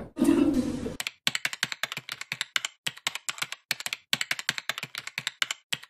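Keyboard typing sound effect: rapid key clicks in runs broken by short pauses, starting about a second in.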